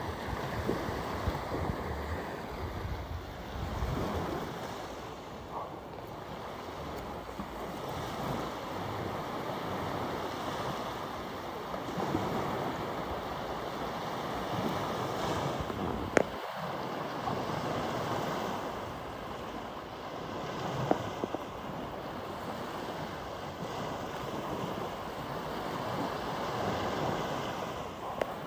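Sea surf washing onto a beach, swelling and easing in waves, with wind rumbling on the microphone. There is a single sharp click about halfway through.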